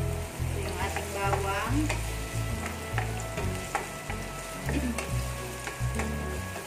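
Chopped garlic sizzling in hot olive oil while a wooden spatula stirs and scrapes it around a ceramic-coated frying pan, with short clicks of the spatula on the pan. Background music with a steady low bass line plays underneath.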